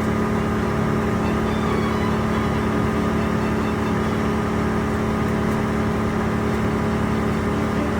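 Engine of tree-removal machinery running steadily at a constant speed, with a strong, even hum.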